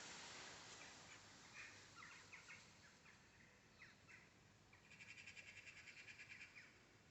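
Faint bird calls: a few short high chirps, then a rapid dry rattle of about a dozen notes a second lasting under two seconds.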